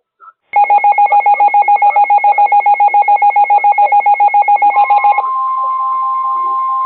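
Emergency alert tones ahead of the next severe thunderstorm warning. First a rapidly pulsing electronic tone, about ten beats a second, for nearly five seconds. Then a steady single tone near 1 kHz, the warning alarm tone of an alert broadcast.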